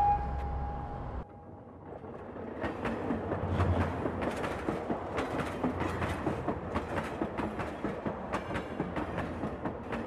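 A steady tone with a low rumble cuts off just after one second in. After a brief lull, a dense, uneven clatter of sharp clicks starts about two seconds in, with a low thump roughly every two seconds.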